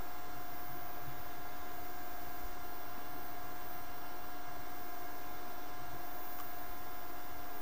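Steady electrical hum with a constant whine and hiss, the background noise of the recording setup, with a single faint click about six seconds in.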